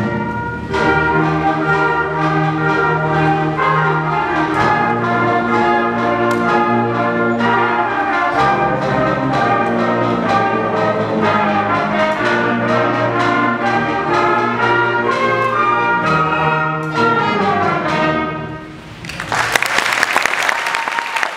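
Middle school concert band playing an Irish clogging tune, brass and woodwinds over a quick steady beat. The music stops about two seconds before the end, and the audience breaks into applause.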